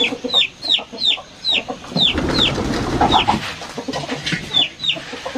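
Chickens calling: a run of short, high, falling peeps, about two a second, with a brief break near the middle. Rustling noise underneath for a second or so partway through.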